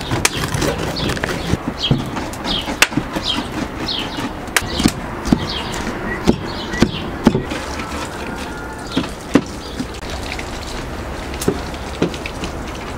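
Large kitchen knife chopping onion and sweet peppers on a wooden cutting board: irregular sharp knocks of the blade striking the wood.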